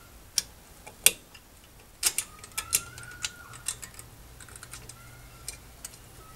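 Sharp metallic clicks and clinks at uneven intervals, the loudest about a second in and a cluster from about two to four seconds in. They come from a drum brake's hold-down spring, cup and pin being worked into place against the brake shoe and steel backing plate.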